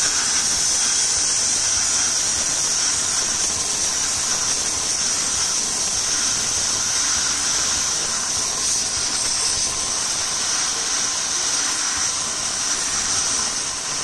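Starq W3 1800W electric pressure washer spraying a high-pressure water jet onto a brick, giving a continuous, steady hiss of spray.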